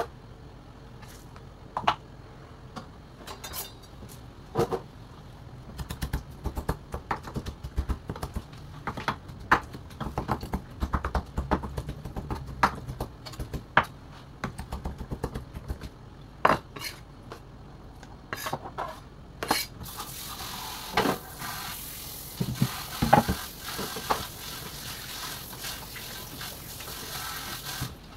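Kitchen knife chopping peeled shrimp on a bamboo cutting board, a run of quick blade strikes on the wood, among the clatter of plastic containers and utensils being handled. A steady hiss joins in about two-thirds of the way through.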